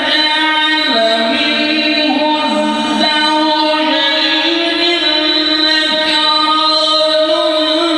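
A man reciting the Quran in tajweed style, drawing out long melodic held notes whose pitch steps and ornaments every second or two, amplified through a microphone.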